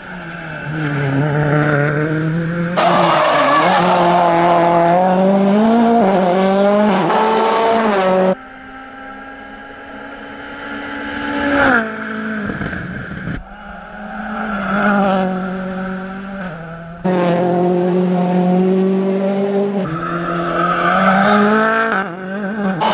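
Ford Fiesta RS WRC rally car's turbocharged engine revving hard at speed, pitch climbing and dropping through gear changes. The sound jumps abruptly several times, as short clips of separate passes follow one another.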